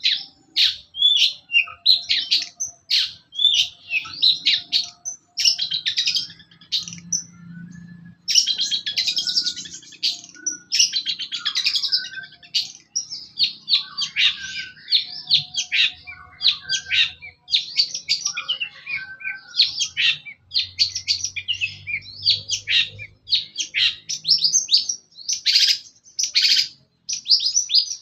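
Long-tailed shrike (cendet) singing a rapid, varied song of chirps and trills, almost without pause.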